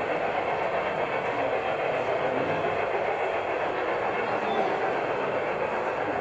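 Model train running along its track: a steady, even rolling noise.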